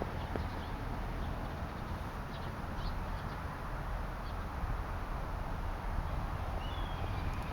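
Faint, short bird chirps scattered over a steady low rumble, with a brief higher whistled note near the end.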